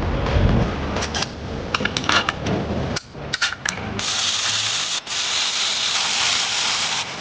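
Workshop sounds of engine reassembly: light metallic clicks and knocks from hand tools and parts, then a steady hiss for about three seconds with a brief break partway through.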